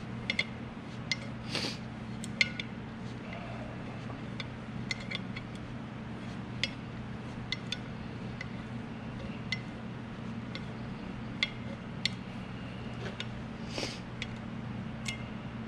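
Small metal lathe parts clinking and tapping as they are handled, in irregular light clicks, over a steady low hum. Two short rushes of noise come about 1.5 s in and again near 14 s.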